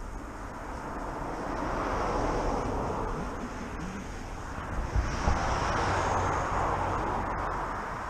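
Road traffic passing: two vehicles go by one after another, each swelling up and fading away, with some wind buffeting on the microphone.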